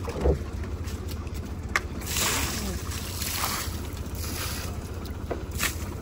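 Fishing boat's engine running steadily as a low rumble, with wind on the microphone and sea noise. About two seconds in there is a louder rush of hissing noise.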